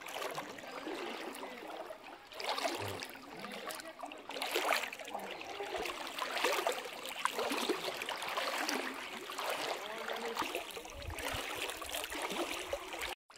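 Floodwater sloshing and splashing in uneven surges, cutting off abruptly near the end.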